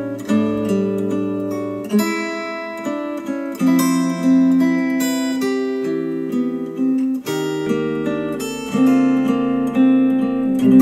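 Acoustic guitar music played back through Polk Audio R200 bookshelf speakers driven by an Audiolab 6000A amplifier. About seven and a half seconds in it switches to KEF Q350 speakers, and a faint low hum appears beneath the music.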